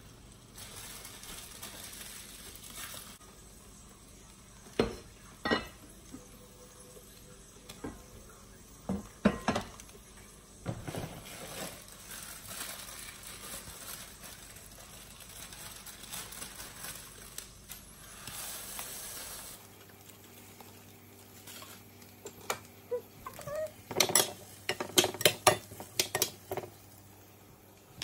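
Kitchen cooking sounds: a few scattered knocks over a faint steady hiss, then near the end a quick run of metal utensils clinking against dishes and pans.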